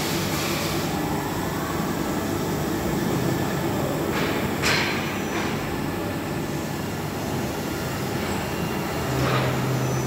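Hartford 2060 vertical machining centre running, a steady mechanical noise of its spindle and axis drives. A short sharp sound comes about halfway through, and a low steady hum comes in near the end.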